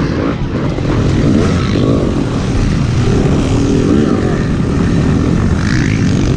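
Yamaha 250 two-stroke dirt bike engine revving up and down as it is ridden, heard from a camera mounted on the bike.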